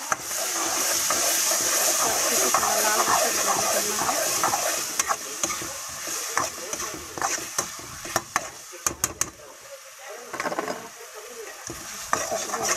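A ground onion, garlic, ginger and nut paste sizzling in hot butter in a metal kadhai, loudest over the first few seconds and then dying down. A spatula stirs and scrapes it round the pan, with many sharp clicks of metal against the pan in the second half.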